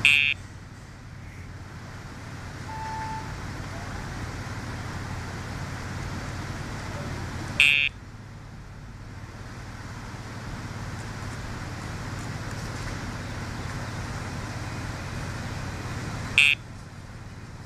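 Dogtra e-collar's sound box giving its pager buzz three times, each a short loud tone about eight seconds apart, over a steady hum of parking-lot traffic. The buzz is the pager cue given with each command to the dog, such as heel and down.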